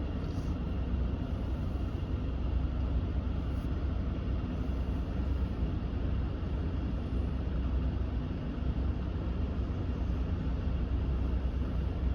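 Steady rush of air from a 2019 Ram 1500's dash vents, the HVAC blower on fan speed 5 with the air conditioning running, over a low, even rumble from the idling truck.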